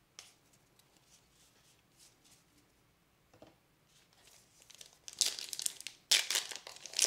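Soft flicks of baseball cards being thumbed through a stack, then, about five seconds in, loud crinkling and tearing of a foil trading-card pack wrapper being ripped open.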